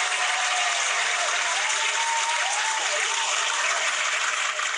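Recorded applause from a crowd, clapping at an even, steady level, with a few faint rising-and-falling tones over it.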